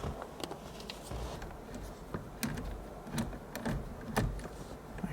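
Scattered light clicks and taps, irregular and spaced a fraction of a second to a second apart, from hand tools and plastic interior trim being handled.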